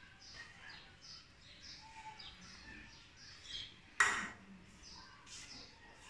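Small birds chirping repeatedly in short high chirps, several a second. About four seconds in, a spoon clinks once, sharply, against a dish.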